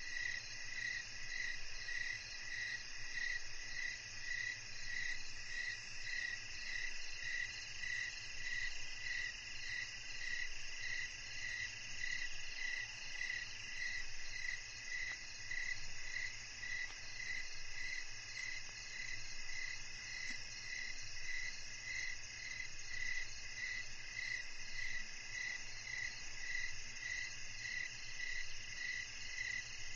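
Chorus of crickets and other night insects: one caller repeats a pulsing chirp about three times every two seconds, over a steady high trill from others.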